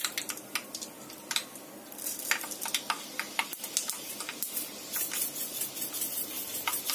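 Mustard and fenugreek seeds sizzling in hot oil in a kadai, a steady hiss broken by frequent sharp pops as the seeds splutter. The pops come more often from about two seconds in.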